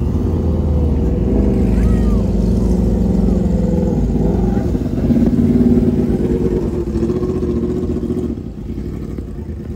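Car engines idling and driving slowly past close by: a C7 Chevrolet Corvette's V8, then an open-wheel race car's engine following along the same lane. The engine note steps up in pitch about halfway through and drops in level about eight seconds in as the cars move off.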